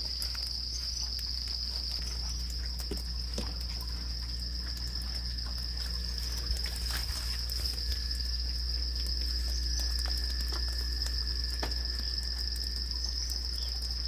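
Insect chorus trilling steadily and high-pitched, with a second, lower steady trill joining about four seconds in, over a steady low rumble and a few faint clicks.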